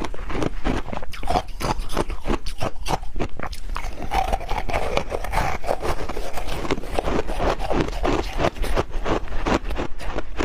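Ice being bitten and chewed close up, a fast run of sharp crunches several times a second with some scraping.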